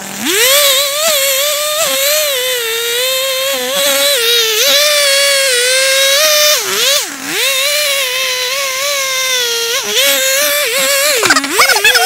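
Two-stroke chainsaw revving up from idle to full throttle and cutting into a standing tree trunk, its high engine note holding steady and sagging briefly under load about seven seconds in and again near the end.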